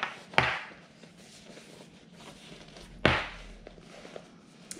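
Black faux-leather (vegan leather) hip pack being handled and turned right side out through its zipper opening: two sharp rustles of the material, about half a second in and about three seconds in, with faint crinkling between.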